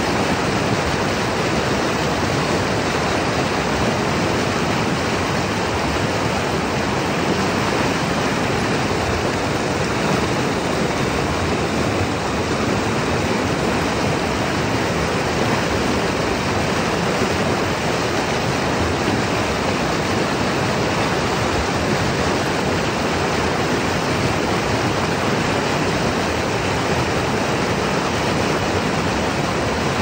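River whitewater rushing over rapids, a steady even rush of churning water.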